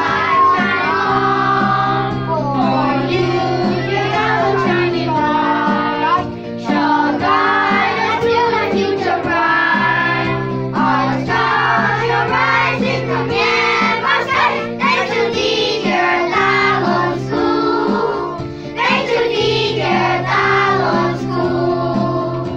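A group of young children singing a song together, with instrumental accompaniment holding steady chords underneath.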